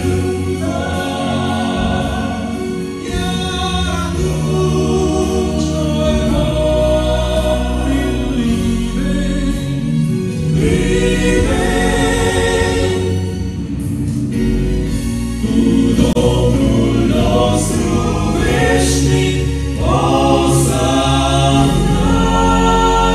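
Male vocal quartet singing a gospel song in harmony through handheld microphones, growing louder about two-thirds of the way through.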